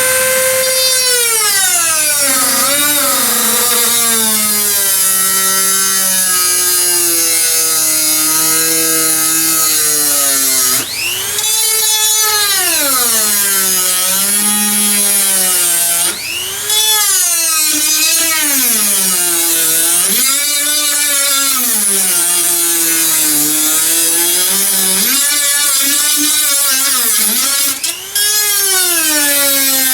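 Dremel rotary tool running at high speed, grinding a recess into a table saw zero-clearance insert. Its whine rises and falls in pitch as the load on the bit changes, and the sound dips briefly three times.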